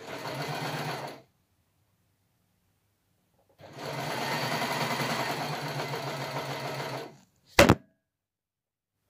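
Overlocker stitching in two runs at an even speed: a short burst of about a second, then a pause, then a longer run of about three and a half seconds. Near the end a single sharp, loud knock as the phone filming is blown over by wind.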